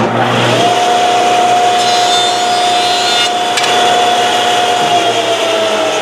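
Woodworking jointer switched on: its whine climbs in pitch over about half a second and then holds steady as the cutterhead runs at speed. A board's edge is fed across the cutterhead, and the whine sags slightly near the end under the cut.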